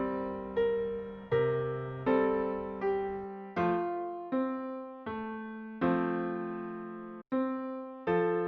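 Background music: electric piano chords struck about every three-quarters of a second, each fading before the next.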